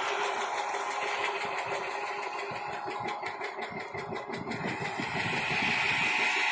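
Freight train hauled by a WDG4 diesel locomotive moving away down the line: a steady mix of diesel engine and wheel noise.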